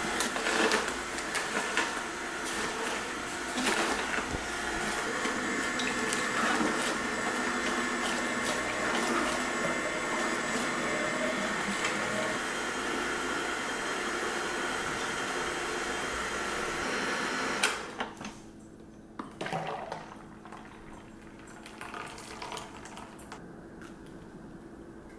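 Vertical slow juicer running, its auger crushing kale and fruit, with juice pouring from its spout into a pitcher. The steady sound stops abruptly a little over two-thirds of the way through, leaving only a few light knocks.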